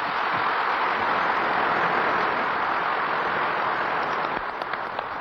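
Large audience applauding steadily in unison, the recording sped up to double speed.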